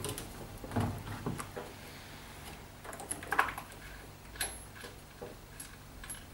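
Scattered light clicks and small knocks from parts being handled inside an opened front-loading washing machine, with one brief high metallic ting a little over four seconds in.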